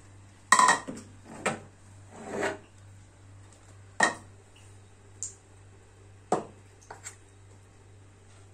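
Metal spoon clinking and scraping against an aluminium pressure cooker pot while sardines in tomato sauce are spooned out: separate sharp knocks every second or so, some with a short scrape.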